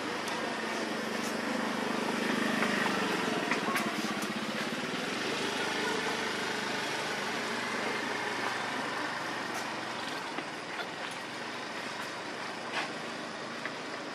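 A motor engine running, loudest about two to three seconds in and then fading, over steady outdoor background noise with a few faint clicks.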